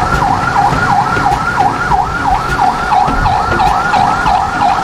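Vehicle siren in fast yelp mode, its pitch sweeping up and down about four times a second, over the low rumble of heavy truck engines.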